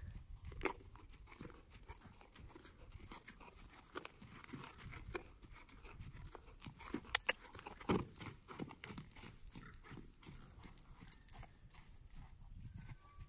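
A horse's hooves walking on sand footing: soft, irregular footfalls with a few sharper clicks.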